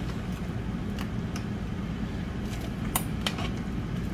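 Several light clinks of a utensil against the soup pot as shrimp are fished out of the broth and served, over a steady low hum.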